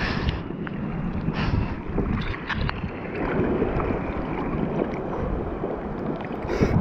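Sea water sloshing and lapping around a bodyboard at the surface, with wind noise on the microphone. A few short, sharp splashes stand out, the last and loudest near the end.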